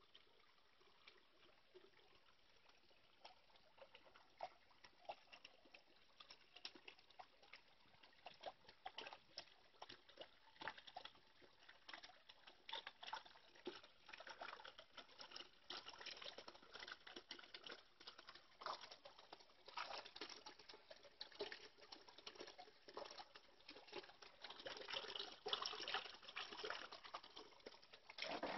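Thin streams of water from a garden rock grotto waterfall trickling and splashing into a shallow pond: a faint, uneven patter of small splashes that grows louder toward the end.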